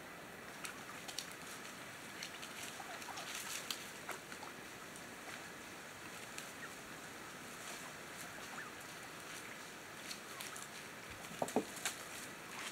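Wild turkeys foraging at a creek pool: scattered soft clicks and rustles of pecking and stepping among stones and dry leaves, with a few faint short calls. Two louder short calls come near the end.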